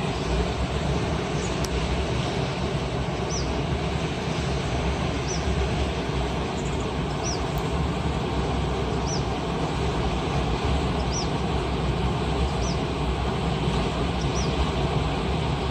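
Wind buffeting the microphone: a steady low rumble with hiss above it. A faint, short, high chirp repeats about every two seconds.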